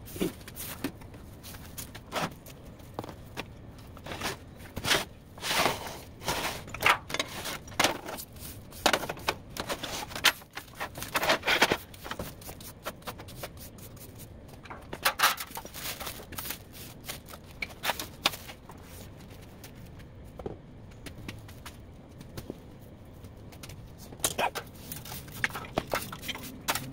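Irregular clicks, knocks and short scrapes of metal being handled on a bare steel griddle plate, with a busy stretch in the first half and a few more near the end.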